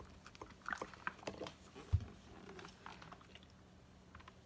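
Cloth being folded and handled on a work surface: a run of small crinkly clicks and taps, with one dull thump about two seconds in.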